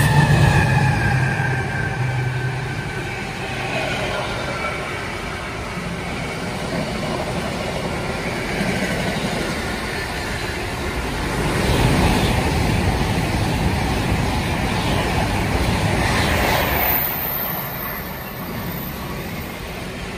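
Intermodal container freight train running through the station: a steady rumble of wagon wheels on the rails. A falling whine sounds in the first few seconds, and the train grows louder for several seconds past the middle.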